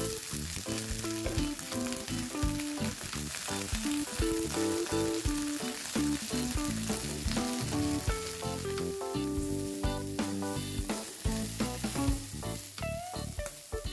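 Cut green beans sizzling in hot oil in a nonstick frying pan, stirred and tossed with a spatula near the end, under background music.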